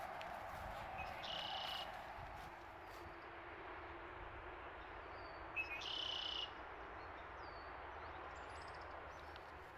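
A bird gives two short buzzy calls, about a second in and again about six seconds in, with a few faint high chirps between them, over a steady outdoor hiss.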